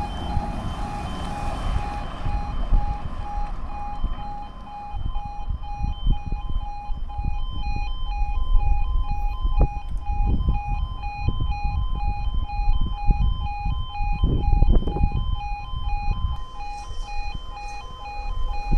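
Level crossing audible warning alarm sounding as the barriers come down: a pair of electronic tones alternating rapidly and repeating without a break.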